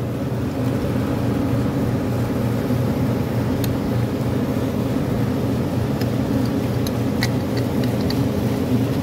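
Refrigeration vacuum pump running with a steady drone while evacuating an air-conditioning system, with a few light clicks from handling the pump.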